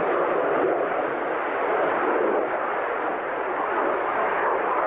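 Steady rushing jet noise from a de Havilland Sea Vixen's twin Rolls-Royce Avon turbojets as the aircraft flies a banking display pass, easing slightly about three seconds in.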